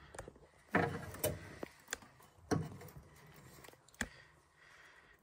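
Several scattered clicks and light knocks of small boiler parts being handled: the plastic flow sensor and its brass push-fit fitting, just removed from the hydraulic block.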